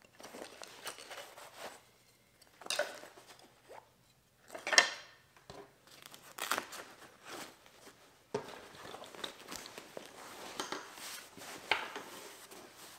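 Chainsaw chaps being handled: the nylon fabric rustles and crinkles as plastic felling wedges and a scrench are gathered up and tucked into the chaps' pocket, and the chaps are folded and lifted, with a sharp knock about five seconds in.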